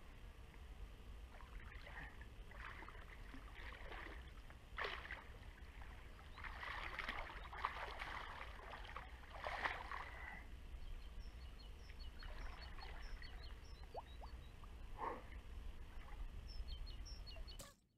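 A hooked wels catfish splashing at the surface in the shallows while being played from the bank, in several irregular bursts of splashing, over a steady low rumble; the sound cuts off suddenly near the end.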